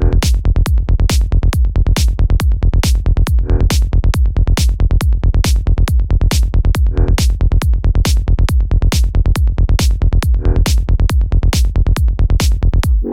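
Progressive psytrance drum-and-bass loop: a steady kick drum with a rolling bassline pulsing between the kicks, and a short synth figure coming back about every three and a half seconds. It cuts off right at the end.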